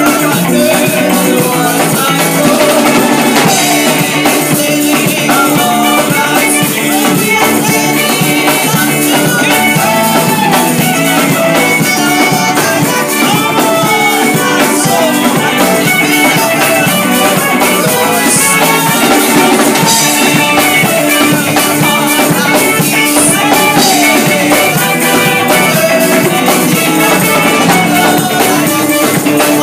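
A live gospel band plays a song: drum kit and electric guitar, with a woman's voice singing a melody over them. The music is loud and continuous.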